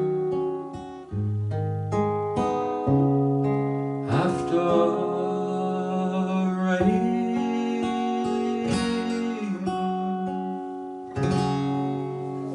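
Acoustic guitar playing the closing instrumental passage of a slow folk song, notes and chords left to ring, with a final chord struck about eleven seconds in.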